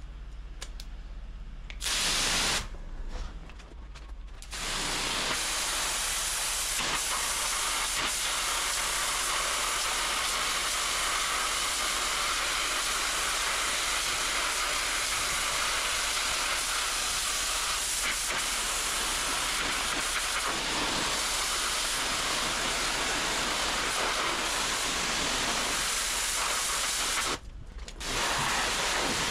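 High-pressure water jet from a handheld pressure washer lance blasting a weathered wooden table top clean: a loud steady hiss of spray. A short burst comes about two seconds in, then continuous spraying from about four seconds in. The spray cuts out briefly near the end and then starts again.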